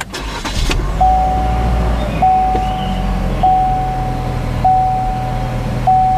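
2018 Chevrolet Equinox engine starting with a short burst in the first second, then idling with a steady low hum. A dashboard warning chime repeats five times, about 1.2 seconds apart, starting about a second in.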